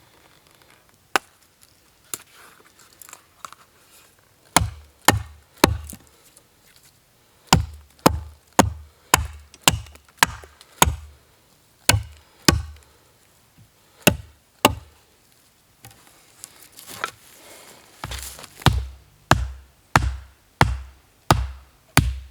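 Axe chopping wood: a long series of sharp strikes, each with a deep thud, coming in runs of several at about two a second with short pauses between.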